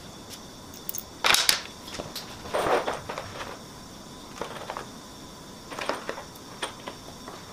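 Short scrapes and small clicks, scattered a second or so apart, of hands fitting washers and bolts into the holes of a front splitter.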